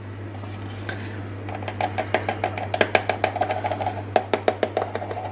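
Small metal measuring spoon clicking and scraping against a plastic baking-powder tub while half a teaspoon is scooped and levelled, a quick irregular run of clicks starting about a second and a half in.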